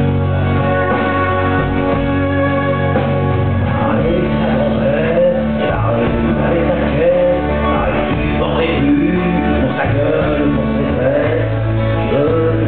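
Live music: a man singing over acoustic guitar and band accompaniment, the voice coming in about four seconds in over held instrumental notes.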